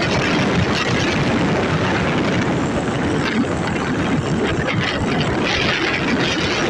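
Storm wind rushing and buffeting over the microphone, a steady loud rumble and hiss.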